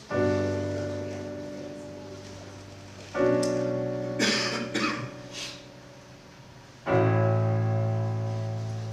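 Digital piano playing three slow chords, each struck and left to ring and fade, about three to four seconds apart. A few short noises come in between the second and third chords.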